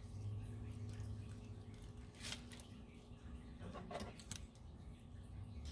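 Kitchen scissors making a few short snips, one about two seconds in and a quick cluster around four seconds in, over a faint steady low hum.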